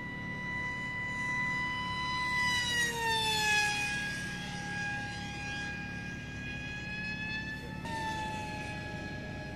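Electric motor and propeller of a small FPV model aircraft whining steadily as it flies past, the pitch dropping as it passes, loudest about three and a half seconds in. Near the end the whine jumps up and slides down again.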